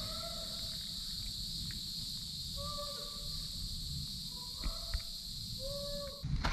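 Steady high-pitched drone of summer insects, cut off suddenly near the end, with four short, level hoot-like calls from an animal spaced about a second or two apart.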